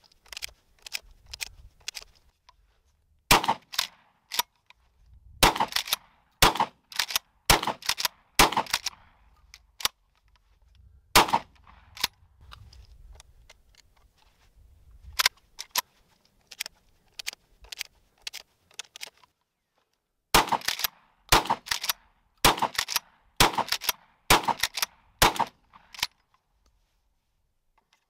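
Rock Island All Gen 12-gauge pump-action shotgun being loaded by hand: sharp metallic clicks as shells are pushed one after another into the tube magazine, coming in clusters with pauses between them.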